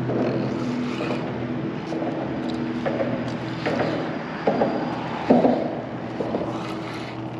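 A steady engine hum, with two short knocks about four and a half and five and a half seconds in.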